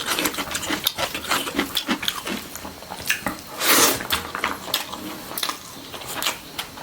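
Close-miked eating: wet chewing and lip-smacking with many short clicks, and a brief louder hissing burst about three and a half seconds in.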